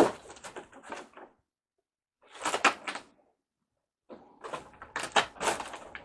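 Knocks and clatter from a screen door and its parts being handled: a sharp knock at the start followed by rattling, then two more bouts of clattering about two and a half and five seconds in.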